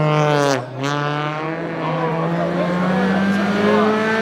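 Citroën DS3 R1 rally car's engine at high revs: a brief lift with a break in pitch about half a second in, then the pitch climbs steadily as the car accelerates out of the corner and passes close by.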